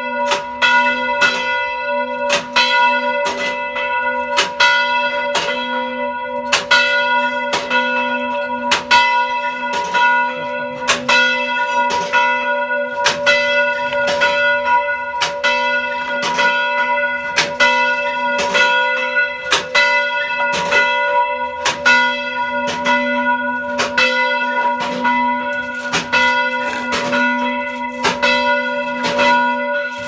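Church bell rung by hand with a rope: a quick, even run of strokes, each ringing on into the next, so the bell's tones hum without a break.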